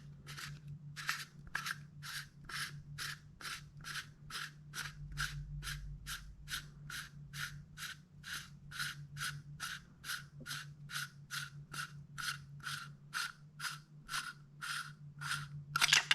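The threaded end cap on the back of a B&T P26's upper receiver being unscrewed by hand: a steady run of short metal scraping strokes, a little over two a second, with a slightly louder stroke near the end. A faint low hum runs underneath.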